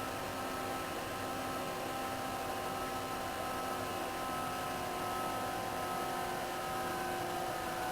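Stepper motors of a CNC hot-wire foam cutter whining in several steady tones over a hiss as the machine runs.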